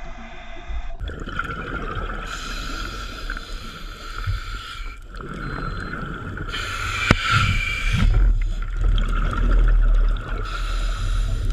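Scuba diver breathing underwater through a regulator: hissing inhalations alternating with stretches of exhaled bubbles. A single sharp click comes about seven seconds in.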